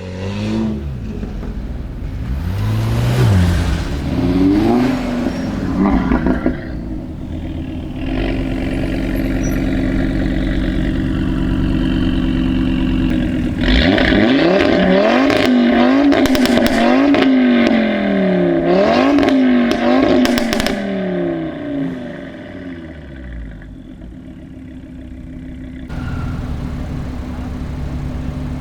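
Audi RS3 8V's turbocharged five-cylinder engine through a full Milltek sport exhaust, revved in repeated quick blips with pops and crackles between them, holding a steady note for a few seconds in the middle. It drops to a quieter run near the end.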